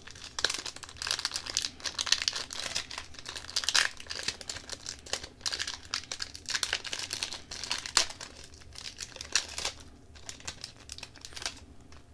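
Hockey card pack wrapper being torn open and crinkled by hand: a dense run of crackling and rustling with sharp snaps, thinning out near the end.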